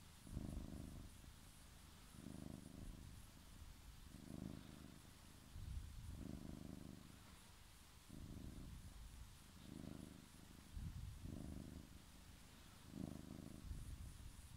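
Orange tabby cat purring softly while its head is stroked, the purr swelling and fading with each breath about every two seconds.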